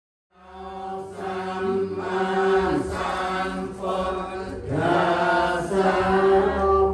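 Buddhist chant: male voices chanting on a steady, held low pitch with slow rises and falls. It fades in from silence in the first half-second.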